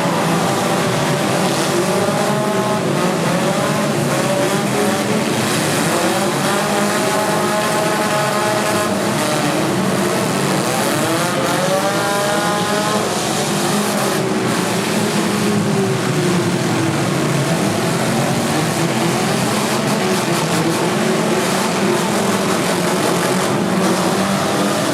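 Many four-cylinder demolition derby car engines running and revving at once, their pitch rising and falling repeatedly as drivers accelerate and back off.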